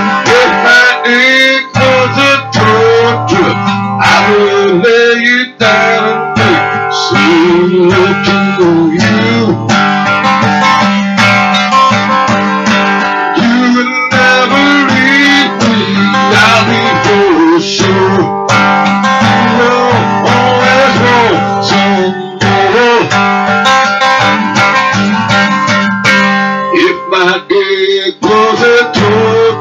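A man singing to his own strummed acoustic guitar, a steady strumming with a wavering vocal line over it.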